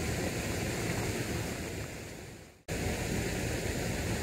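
Steady outdoor rushing noise of wind on the microphone and a flooded river flowing. It fades away about two and a half seconds in, then cuts back in suddenly.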